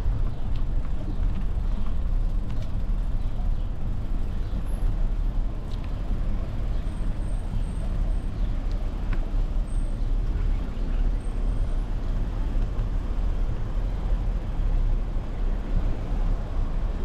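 Steady low rumble of a bicycle being ridden over brick paving: tyre noise and wind on the microphone, with a few faint ticks.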